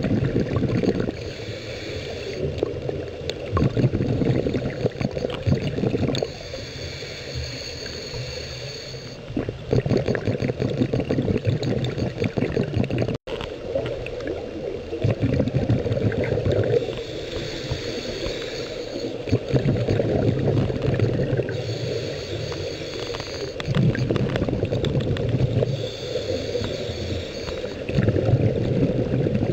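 Scuba diver breathing through a regulator underwater: a hissing inhale, then a burst of gurgling exhaust bubbles, in a slow cycle that repeats every few seconds.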